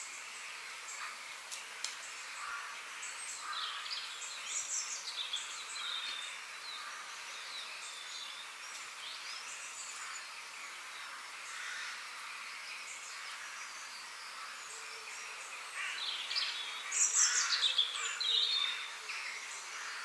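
Forest ambience of several birds chirping and singing over a steady high hiss, with a louder flurry of quick chirps and trills near the end.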